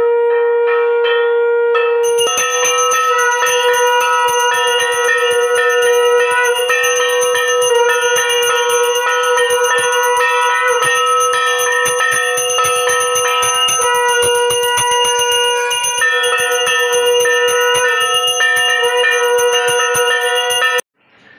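A hand bell is rung rapidly and continuously during puja worship, with a conch shell sounding a steady held note underneath. The conch sounds alone for the first couple of seconds before the bell comes in, and both stop abruptly near the end.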